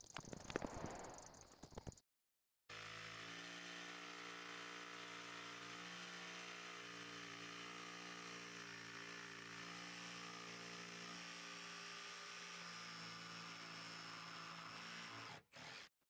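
A few knocks and scrapes, a short break, then a steady mechanical hum at an unchanging pitch for about twelve seconds, which cuts off abruptly near the end.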